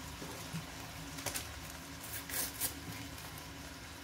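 Minced pork frying faintly in a pan, a steady low hiss, with a few short papery rustles of a spice sachet being handled, about a second in and twice more past the middle.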